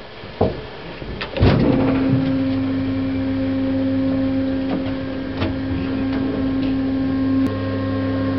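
Modern generic passenger lift running: a clunk and clicks about a second and a half in, then a steady machine hum with several fixed tones as the car travels.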